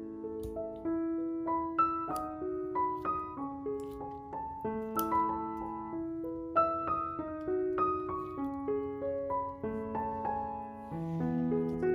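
Piano-style keyboard music: a melody of struck notes and chords, each held and changing about every half second to a second.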